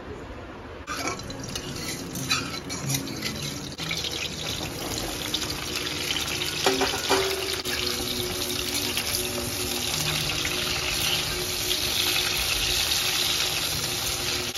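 Pointed gourd (parwal) pieces sizzling in hot oil in a steel kadai, with a few clinks of the steel spatula against the pan in the first seconds; the sizzle settles into a steady hiss.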